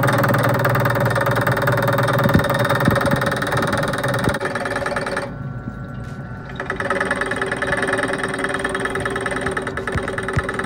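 Drill press running with its bit cutting into a stubborn brass plug in a hydraulic pump block, a steady whir with fine rapid chatter. The cutting sound drops away for about a second past the middle, then picks back up.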